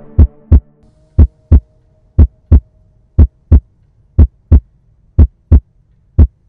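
Deep double thumps like a heartbeat, a pair about every second, steady and evenly spaced, with silence between the pairs.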